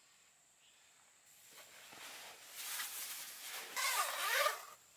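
A tent zipper being pulled along a window panel, with nylon fabric rustling. It comes in strokes that are loudest just before the end.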